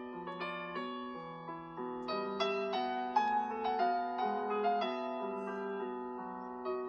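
Google Pixel 7a ringtone playing: a piano-like keyboard melody of quickly struck notes over held lower chords.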